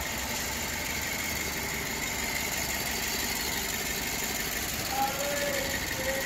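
BMW 116i's N43 1.6-litre four-cylinder petrol engine idling steadily, heard from underneath the car.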